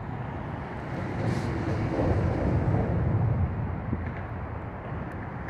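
A low rumble of a passing vehicle swells and fades over a few seconds, over a steady outdoor bed of traffic and wind noise.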